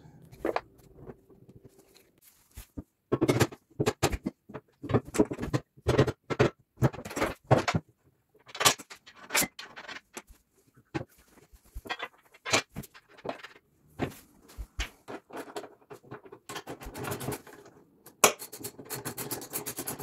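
Steel plow pivot bracket and its bolts being fitted and tightened by hand: irregular metal clanks, scrapes and rattles, then a rapid run of clicks near the end from a socket ratchet tightening the bolts.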